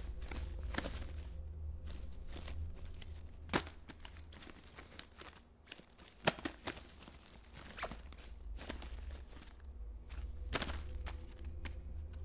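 Rustling, irregular clicks and knocks of a bag's contents being rummaged through and handled, with a few sharper knocks about three and a half, six and ten and a half seconds in. A steady low hum runs underneath.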